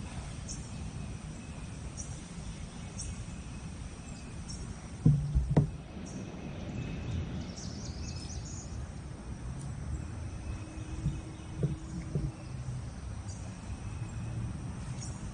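Insects chirping steadily over a low rumbling background. A cluster of sharp knocks sounds about five seconds in, with a few fainter knocks later.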